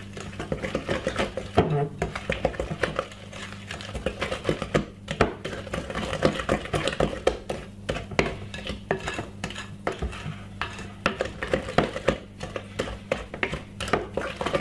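Wooden spoon beating thick sponge-cake batter in a glass mixing bowl: rapid, irregular knocks and scrapes of the spoon against the glass, over a steady low hum.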